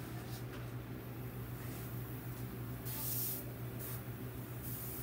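Airbrush spraying paint in short hissing bursts, the longest and loudest about three seconds in.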